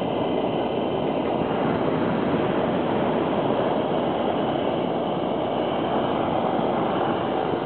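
Hot air balloon's propane burner firing, a loud steady rushing noise that holds without a break.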